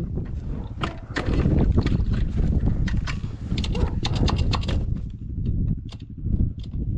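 Dirt bike engine running while the bike is ridden over rough, bumpy ground, with many short knocks and rattles from the bike bouncing.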